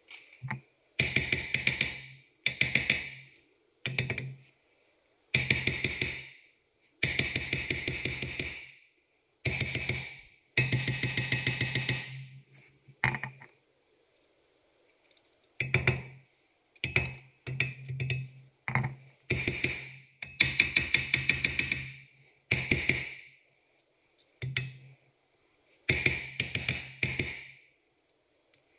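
Impact wrench hammering in over a dozen short bursts of rapid impacts, with pauses between them.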